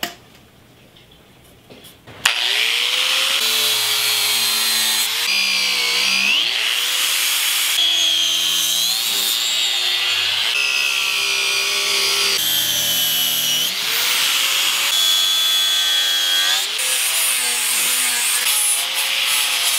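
About two seconds of quiet, then an angle grinder starts abrading a wooden axe handle. Its motor whine rises and dips again and again as the disc bites into the wood, over a steady gritty grinding.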